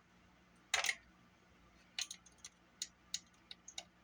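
Small sharp clicks and taps from handling the parts of a Sony Walkman cassette mechanism with tools during disassembly: a short rattle of clicks about a second in, then a string of single clicks from about two seconds in.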